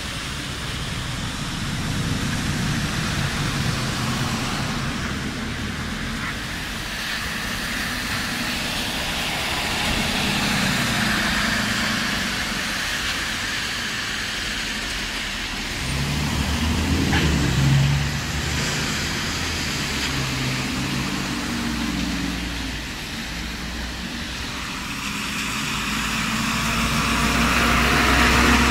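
City buses and cars driving past on a rain-wet road: tyres hissing on the wet asphalt over the rumble of bus engines. The engine rumble swells as a bus passes about two-thirds of the way through, and swells again near the end as another bus goes by close.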